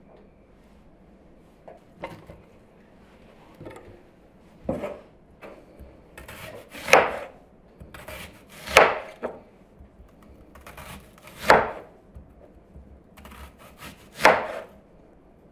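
A large knife slicing a red onion into rings on a wooden cutting board. Each slow stroke crunches through the onion and ends in a knock on the board, five strong cuts two to three seconds apart with fainter strokes between, starting a few seconds in.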